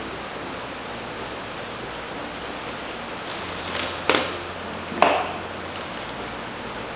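Plastic cling wrap pulled out from its roll: a rising rustle, then two sharp crackling snaps about a second apart, over a steady background hiss.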